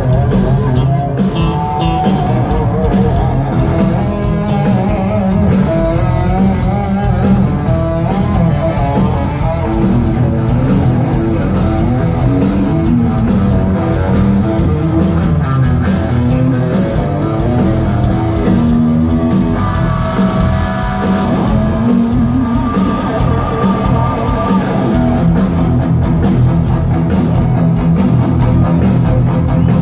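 Live hard rock band playing loud: a lead electric guitar playing bending, wavering held notes over bass and a steady drum beat.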